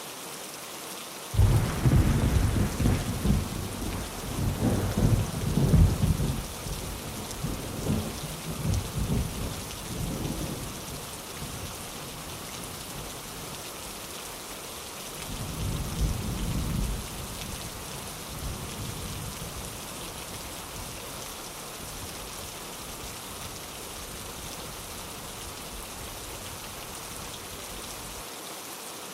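Steady rain with thunder. A loud rumble breaks in suddenly about a second and a half in and rolls for about ten seconds. A second, softer roll of thunder comes around the middle and dies away, leaving only the rain.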